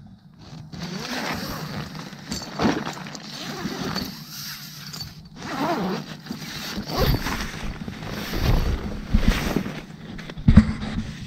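Nylon tent door zipper being pulled open in several strokes, with the tent fabric rustling.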